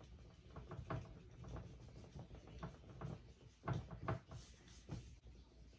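Small paintbrush dabbing and stroking on a canvas: a faint, irregular patter of light taps and scratches, with a cluster of louder taps about four seconds in.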